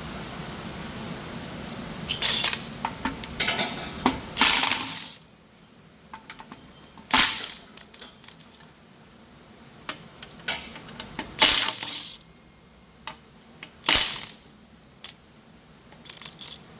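Metal hand tools clinking and ratcheting against a car's exhaust while its clamp bolts are loosened: scattered sharp metallic clinks and a few short rasping bursts.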